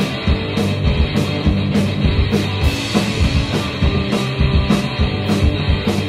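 Rock band playing live, an instrumental passage with a steady drum beat under guitars.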